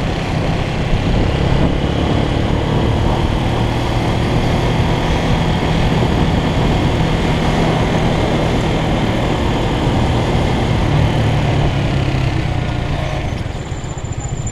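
Motorcycle engine running at low road speed, heard from the rider's seat with wind rushing over the microphone. The engine note eases off near the end as the throttle closes.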